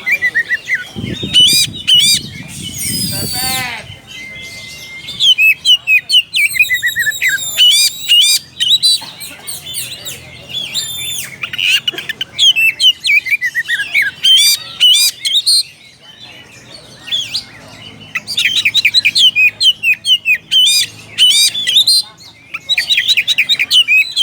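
Oriental magpie-robin singing a loud, varied song of rapid whistles and chattering notes in bursts with short pauses. It is the challenging song that calls out a rival male.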